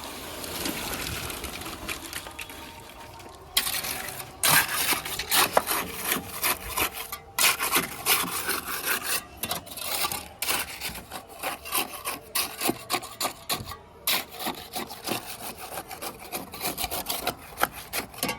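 A steady rushing noise, then from about four seconds in rapid, irregular rasping strokes of a hand tool working a hard surface, broken by a few short gaps.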